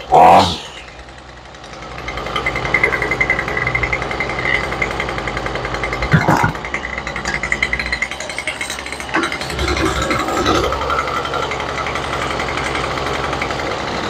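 Toro string trimmer's small two-stroke engine running steadily on a newly fitted carburetor, with its fuel mixture screw not yet adjusted; it comes in about two seconds in after a couple of short sharp sounds. Two sharp knocks sound around six and nine seconds in.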